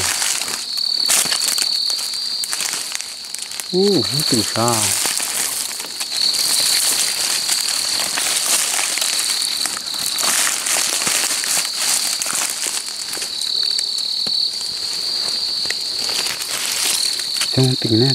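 Night insect chorus, crickets trilling steadily in one high-pitched band, with scattered rustles and crackles of dry leaves and undergrowth.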